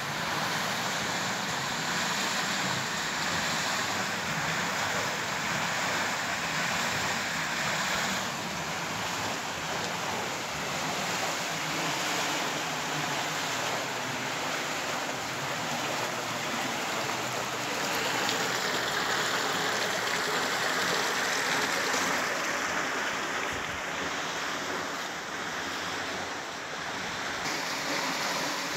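Water rushing and splashing through a mill's metal paddle water wheel: a steady hiss of falling water that shifts in tone a few times.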